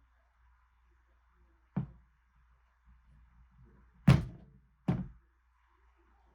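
Three hard knocks on a hard surface, like objects being set down or bumped: one about two seconds in, a louder one about four seconds in, and a third just after it.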